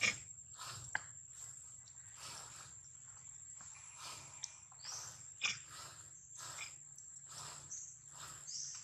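Insect chorus: a steady high-pitched whine with hazy pulsing calls about twice a second.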